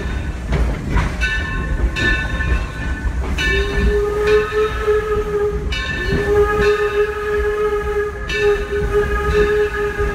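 Steam whistle of the 1873 Mason Bogie locomotive blowing several long blasts of about two seconds each, starting about a second in, with a low, steady rumble of the train rolling on the rails beneath.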